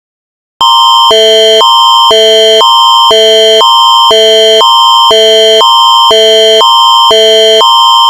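Canadian Alerting Attention Signal (Alert Ready emergency alert tone): a loud two-chord tone that alternates between a high chord and a low chord about every half second over a steady high whistle, starting about half a second in. It marks the start of an emergency alert broadcast.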